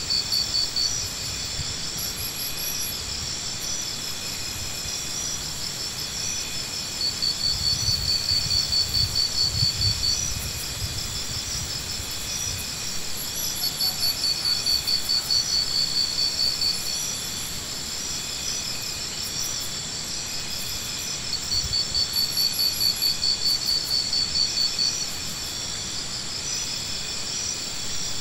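Insects calling: a fast, pulsing high trill in bouts of about three seconds that come back every six to seven seconds, over a steady high-pitched drone.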